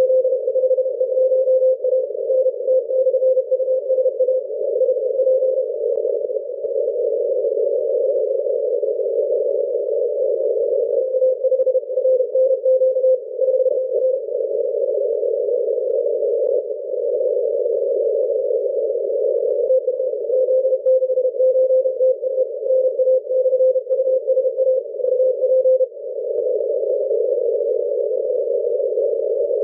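Shortwave receiver in a narrow CW filter: steady band hiss, with one station's Morse code tone keyed on 7.019 MHz in three spells. The first runs for about the first four seconds, the second from about eleven to fourteen seconds, and the third from about twenty to twenty-six seconds.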